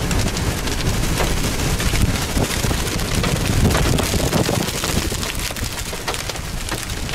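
Rain and wind noise: a steady hiss with a low rumble of gusting wind and many small raindrop taps.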